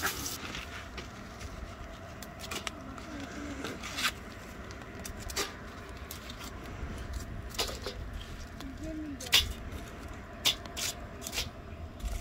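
Scattered light clicks and knocks, about ten of them, the loudest about three-quarters of the way through, over a low steady rumble.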